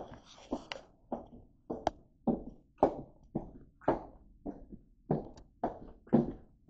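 Footsteps walking on a hard floor at a steady pace of a little under two steps a second.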